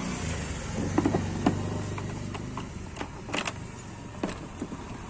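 Yamaha Ray Z scooter running with a steady low hum and irregular sharp clicks and rattles over it. The rattling comes from coins and a memory card that fell inside the scooter's body and are stuck there.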